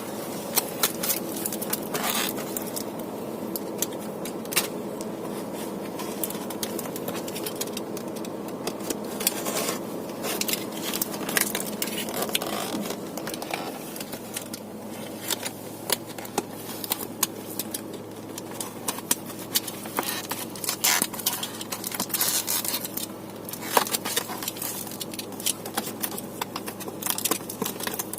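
Hands opening a boxed camera's packaging: cardboard and plastic scraping and crinkling, with many irregular sharp clicks and rustles. A steady low hum sits underneath, and a deeper hum joins about halfway through.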